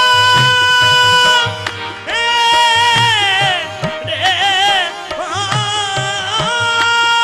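A qawwali ensemble performing a naat: a male lead voice holds long notes and sings a quick wavering ornamented run in the middle, over harmonium and a soft tabla beat.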